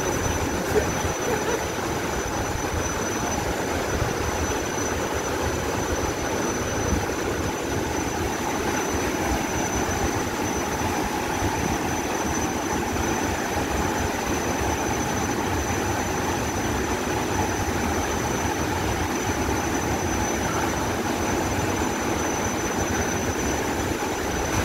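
The steady roar of the Nyahururu Falls waterfall: an even, unbroken rush of falling water with a deep rumble underneath.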